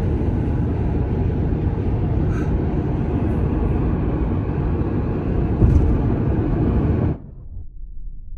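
Steady road and wind noise of a car driving at highway speed. It cuts off abruptly about seven seconds in, leaving only a faint low hum.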